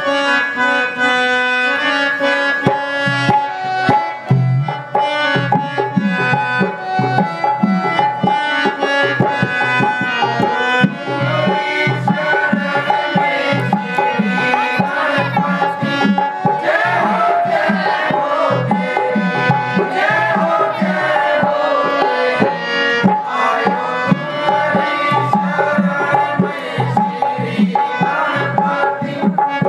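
Devotional aarti music: tabla keeping a steady rhythm under the sustained chords of a reed keyboard instrument such as a harmonium, with a higher, wavering melody line joining a little over halfway through.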